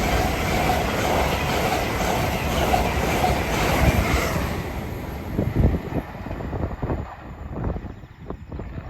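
LNER express train passing through the station at speed. A loud rush of rail noise fades after about four seconds, leaving a run of wheel clicks over rail joints as the train draws away.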